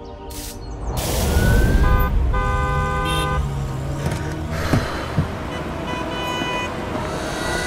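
Car horns honking in city traffic: a loud traffic rumble comes up about a second in, with horn blasts around the middle and again near the end, over background music.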